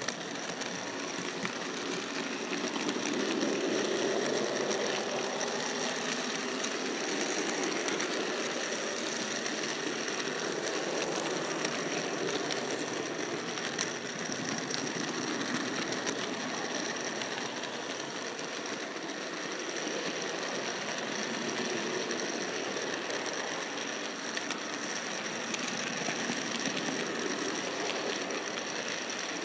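Model train running along the track: the steady whir of its small electric motor and gears, with a high thin whine and a few faint clicks from the wheels on the rails.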